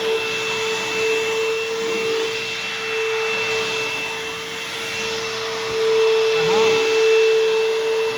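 Bissell CleanView Helix bagless vacuum cleaner running with a steady motor whine over airflow noise, growing somewhat louder about six seconds in.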